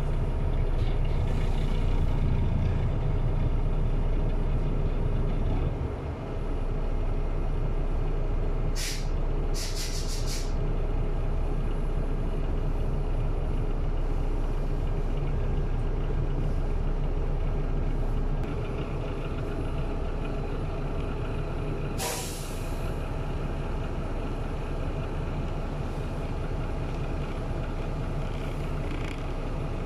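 City bus interior: the engine runs steadily as the bus creeps in traffic. Short sharp air hisses come about nine and ten seconds in, and a longer, louder hiss comes about 22 seconds in, the pneumatic release of the bus's air brakes.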